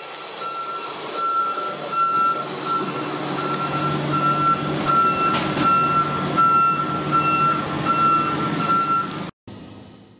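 A vehicle's reversing alarm beeping steadily, about two beeps a second, over a low engine rumble that grows louder a few seconds in. The sound cuts off suddenly near the end.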